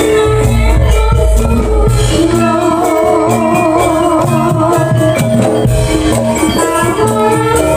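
Loud Javanese jaranan (kuda lumping) dance music from a gamelan-style ensemble: a steady, driving beat of drums and shaken and struck percussion under sustained melody lines, with no break.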